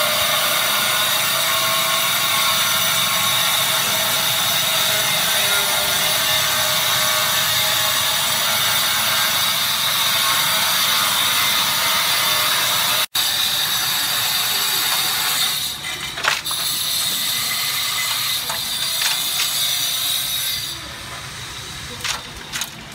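Handheld electric power tool running steadily with a high whine and gritty cutting noise. Over the last few seconds it stops and starts in short runs, then cuts out.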